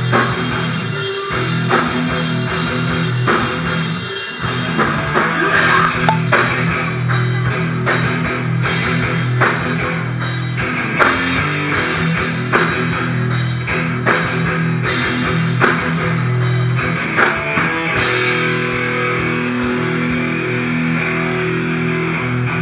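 A live heavy rock band playing loud, with distorted electric guitars and a drum kit pounding out a steady beat with cymbal crashes. About eighteen seconds in the drums and cymbals drop out, leaving the guitars ringing on.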